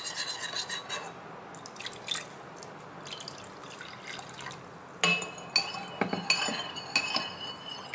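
Water poured from a glass jug into a ceramic bowl of sauce while a metal spoon stirs it, then the spoon clinking against the bowl several times, each clink ringing briefly, from about five seconds in.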